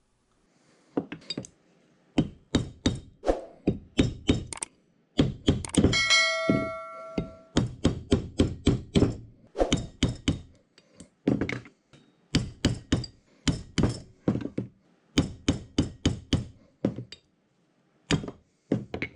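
Brass hammer striking a brass drift to drive the front bearing out of a Dorian right-angle milling attachment's housing: runs of quick, sharp blows, several a second, with short pauses between runs. About six seconds in, one blow rings on with a clear metallic tone for over a second.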